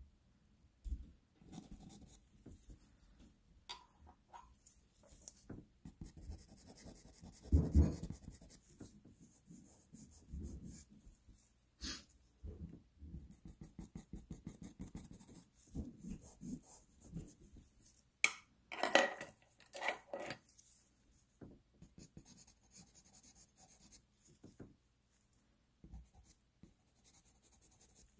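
Pastel pencil scratching across textured paper in short, irregular strokes. There are a few louder knocks and clicks from handling, the loudest a dull bump about a quarter of the way in.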